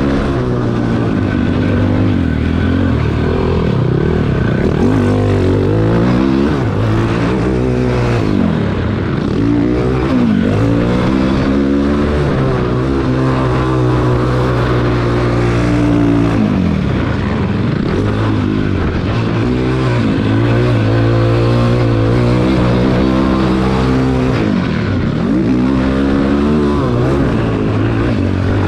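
Cannondale quad's single-cylinder four-stroke engine under load, revving up and dropping back over and over as the throttle is worked and gears change.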